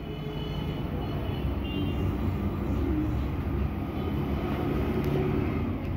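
Steady low background rumble, like a running engine or traffic, growing a little louder after the first second.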